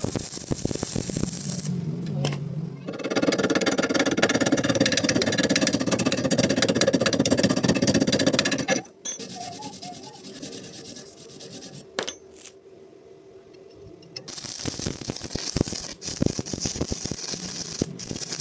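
Electric arc welding on iron rods: a dense, loud crackle heard in several cut-together stretches. It drops to a quiet lull with a single click about halfway through, then the crackle starts again near the end.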